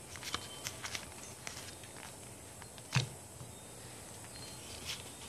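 Pokémon trading cards being handled and flipped through by hand: soft scattered clicks and slides of card against card, with one sharper tap about three seconds in.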